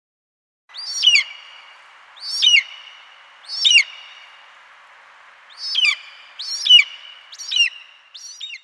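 A kite calling: a series of about seven high, wavering whistles, each gliding downward, over a faint steady hiss. The calls come roughly every second and a half, then closer together near the end.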